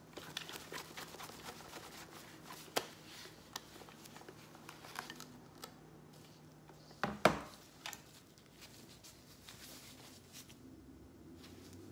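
Cloth wiping and rubbing over the plastic body of a Pyle megaphone in gloved hands, a run of soft rustling strokes with a few handling knocks, the loudest about seven seconds in.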